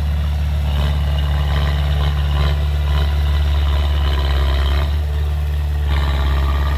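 Heavy-equipment diesel engine running steadily with a deep hum. A harsher, higher-pitched layer comes in about a second in, drops out near five seconds, and returns near the end.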